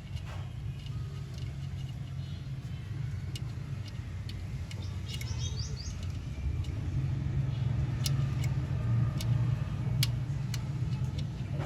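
Toyota GLi engine running steadily at idle, with scattered light clicks over it. A bird chirps briefly about five seconds in.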